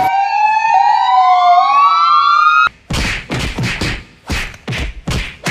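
Police siren wailing, several rising and falling tones overlapping, which cuts off suddenly about two and a half seconds in. Then comes a quick, uneven run of sharp whacking hits, about nine in three seconds.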